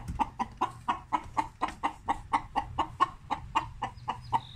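A hen clucking steadily, short calls about four or five a second in an unbroken run.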